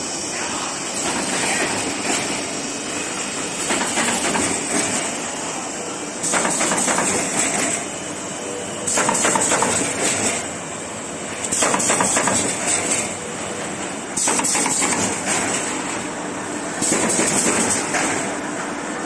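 Automatic corrugated-cardboard partition assembly machine running with a dense clatter that swells into louder stretches of about a second and a half, roughly every two and a half seconds.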